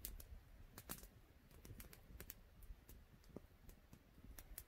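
Campfire crackling faintly: scattered, irregular sharp pops and snaps of burning wood.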